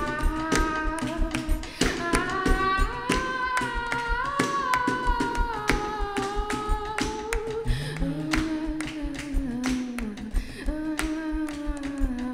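A woman singing long, sliding held notes into a microphone over live accompaniment with a steady percussive beat.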